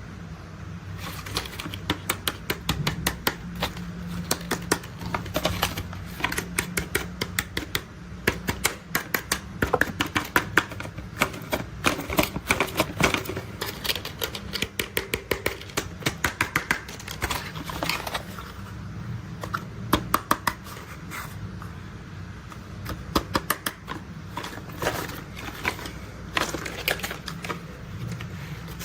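Rapid, irregular clicking and clattering of plastic toy construction vehicles being handled and worked, with runs of quick sharp clicks over a low steady hum.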